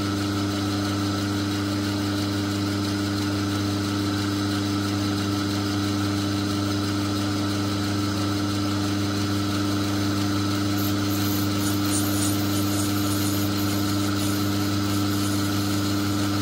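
Myford lathe running steadily under power, a steady hum from its motor and spindle drive. From about eleven seconds in, faint high scratching as the tool takes a light facing cut across the end of a brass bar.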